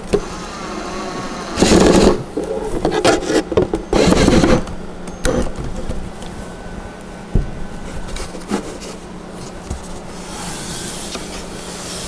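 Cordless drill driving a screw through wooden trim into a panel: a motor whine, then louder spells about two and four seconds in as the screw bites, with shorter bursts between. Near the end there is a softer rubbing as the wooden piece is handled.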